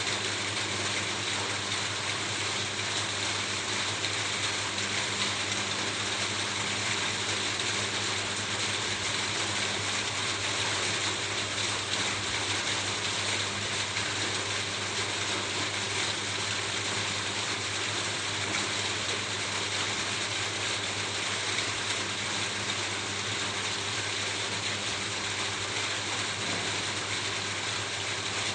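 Steady rain falling on a roof: a dense, even patter with no breaks, with a faint low steady hum underneath.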